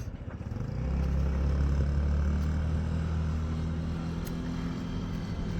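A motor vehicle's engine running, a low steady hum that comes up about a second in and eases slightly after about four seconds.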